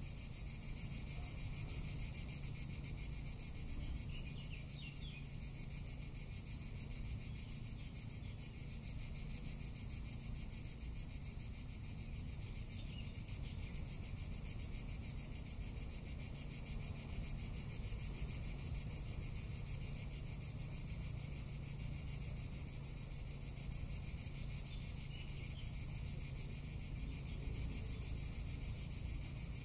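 Cicadas singing in a steady, unbroken high-pitched buzzing chorus, with a low rumble underneath.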